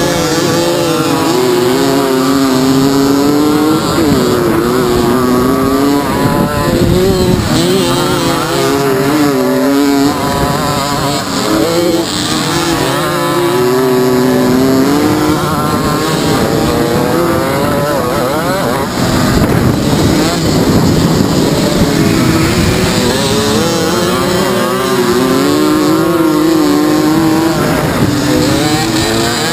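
Several small two-stroke moped engines racing at once, their pitches overlapping and rising and falling as they rev up and back off.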